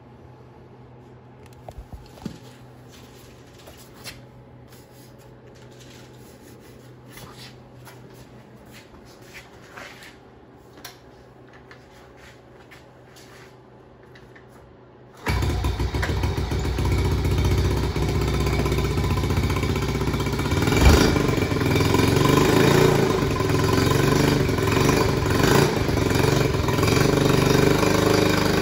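1972 Honda CT70's small single-cylinder four-stroke engine started from cold. A few faint knocks come first; then about halfway through, as the kickstarter is worked, the engine catches abruptly and keeps running steadily, picking up a little louder a few seconds later.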